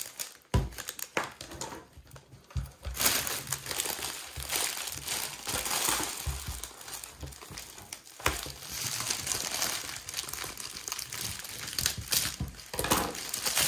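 Metallic foil wrapping of a large chocolate Easter egg crinkling and rustling as it is handled and crumpled, in irregular bursts with a few low knocks.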